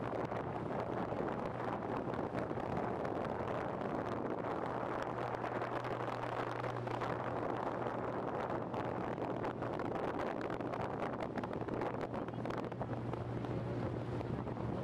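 Motorboat engine running at a steady speed, a constant low hum under the rush of water past the hull, with wind buffeting the microphone.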